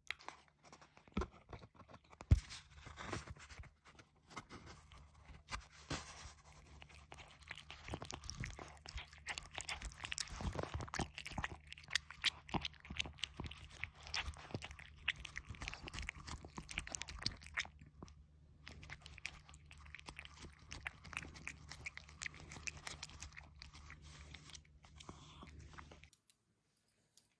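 A cat eating from a paper plate close to the microphone: a long run of wet chewing and crunching clicks that stops about a second before the end.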